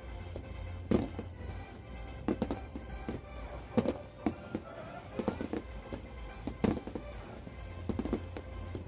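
Aerial firework shells bursting in an irregular string of sharp bangs, about one a second, over loud show music.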